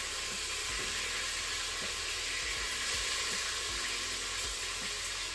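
Chicken thighs sizzling steadily as they sear in the oiled inner pot of a Crockpot Express multi-cooker on brown/sauté, with a few light knocks of tongs turning the pieces.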